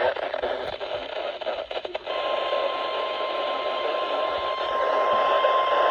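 Weather radio receiver hissing with static, with a few crackles, then a single steady high-pitched tone coming in about two seconds in and holding.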